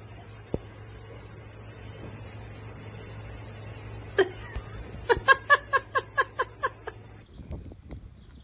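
A short run of quick, high-pitched laughter about five seconds in, over steady background hiss, preceded by one brief vocal sound; the level drops sharply a little after seven seconds.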